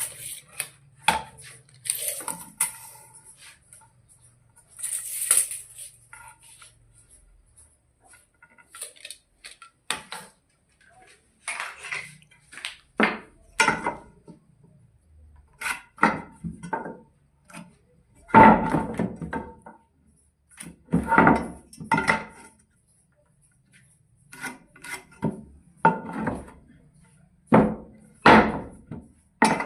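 Irregular knocks and clatter of wooden pieces and hand tools being handled and struck during woodwork, with a few short scraping strokes in the first few seconds.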